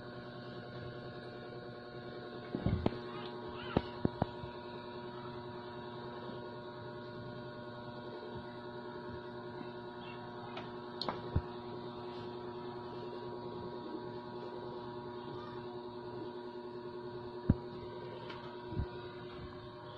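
A steady hum made of many even, unchanging tones, with a few short sharp knocks over it: a cluster about three to four seconds in, two about eleven seconds in, and the loudest one about seventeen and a half seconds in.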